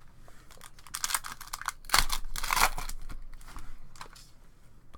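A foil trading-card pack wrapper being torn open and crinkled, in several quick bursts of tearing and rustling, the loudest about two seconds in.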